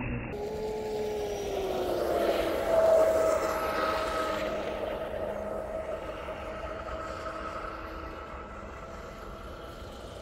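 RC racing boat's brushless electric motor whining at speed. The whine dips a little in pitch early on, is loudest about three seconds in, and then holds one steady pitch while slowly fading.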